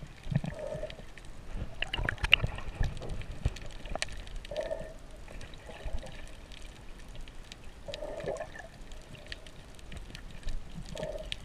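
Underwater sound through a waterproof camera housing: water gurgling and bubbling, with scattered clicks and crackles and a few short muffled thuds.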